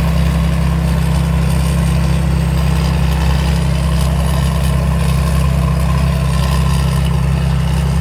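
Kaset Pattana Chao Chang WiFi rice combine harvester's diesel engine and threshing machinery running steadily during harvesting: an even, deep drone with no change in speed.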